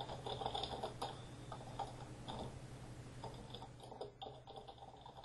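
Faint computer keyboard typing: scattered, irregular key clicks over a steady low hum.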